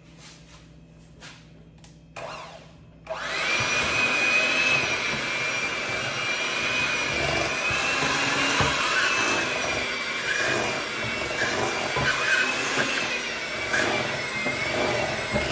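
Electric hand mixer switched on about three seconds in and running steadily as its beaters churn thick pound cake batter, with a high motor whine that wavers slightly.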